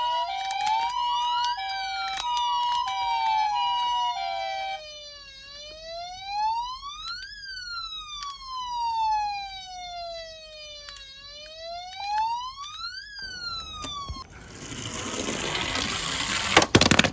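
Electronic toy siren sounds: a two-tone hi-lo ambulance siren plays together with a slow rising-and-falling wail until about five seconds in, then the wail alone sweeps up and down. Near the end the siren stops and a rattling roll, like a toy car running down a slope, takes over and ends in a sharp clack.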